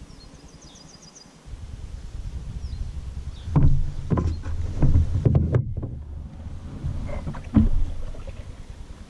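Knocks and bumps on an Old Town Saranac 146 canoe's hull as the paddle is handled and paddling begins, several in a cluster a few seconds in and one more near the end, over a low steady rumble that starts about a second and a half in.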